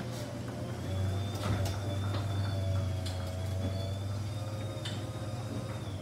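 Garage door opener running a sectional garage door, a steady low hum with a faint high whine and a few light clicks from the door's rollers and hinges, stopping near the end.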